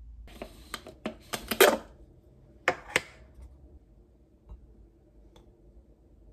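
A metal spoon and glass jar clinking and knocking against a glass mug and the tabletop while ginger syrup is scooped out. There is a quick cluster of clicks and knocks in the first two seconds, two sharp clinks about three seconds in, and then only faint ticks.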